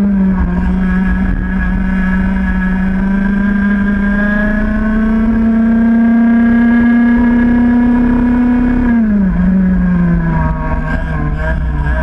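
Onboard sound of a racing kart's two-stroke engine at full throttle, its high-pitched note climbing slowly as it pulls along a straight. The pitch drops sharply about nine seconds in as the throttle comes off, then begins to rise again near the end.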